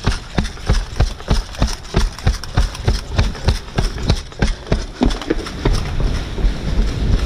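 Running footsteps of an airsoft player, heard through the player's own body-mounted camera: rhythmic thuds, about three to four a second.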